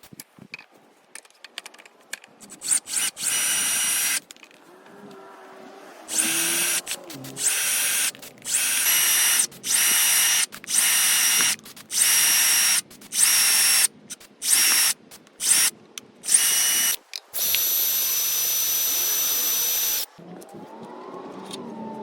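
Power drill run in about a dozen short trigger bursts, each winding up quickly to a steady high whine and stopping sharply, with one longer run of about three seconds near the end.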